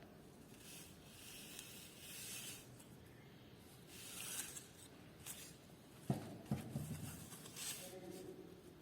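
Faint scratching and rustling in short spells, with two soft knocks about six seconds in.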